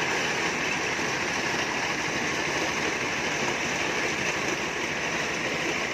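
Corn sheller machine running steadily while being fed whole cobs, giving a continuous, even rushing rattle with no pauses.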